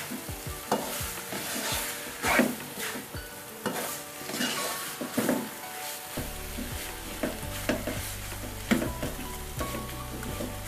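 Beef chunks frying in a thick rendang spice paste in a pan, sizzling steadily while a spatula stirs and scrapes them in repeated irregular strokes.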